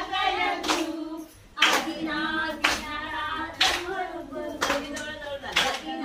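A group of women singing a song together while clapping in time, about one sharp clap a second, with a short break in the singing about a second and a half in.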